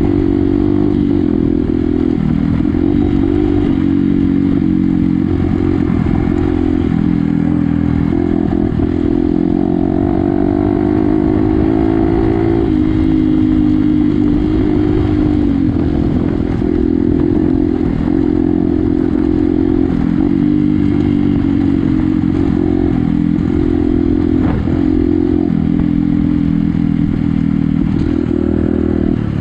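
Motorcycle engine running under way, its pitch stepping up and down with throttle and gear changes, with a slower fall about halfway through.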